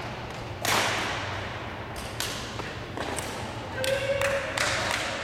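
Badminton rally: rackets hitting a shuttlecock, a series of sharp smacks, the loudest about a second in and several more coming quicker after the middle.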